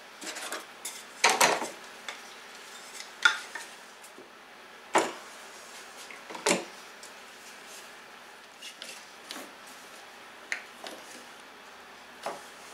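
Irregular sharp clicks and knocks of one-handed bar clamps and small wooden blocks being handled and set against a wooden spar, about half a dozen distinct strikes with quieter handling in between.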